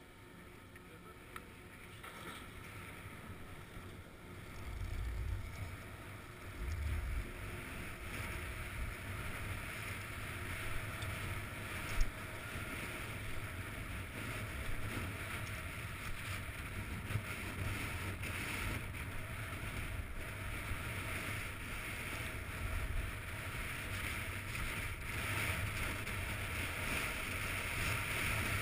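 Skis sliding and scraping on packed groomed snow, a steady hiss, with wind rumbling on the microphone; it grows louder as the skier picks up speed down the trail. One sharp click about twelve seconds in.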